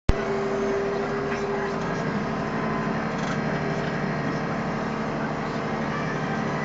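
Renault Ares 640 tractor's diesel engine running at a steady pitch, heard from inside the cab, as the tractor drives over the grass silage clamp to pack it down.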